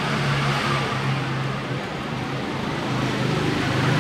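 Steady road-traffic noise with a low engine hum that swells and fades.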